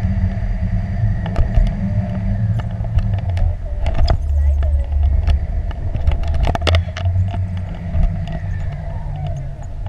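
Wind rushing over an action camera's microphone in flight under a tandem paraglider: a steady low rumble, with scattered sharp clicks and taps.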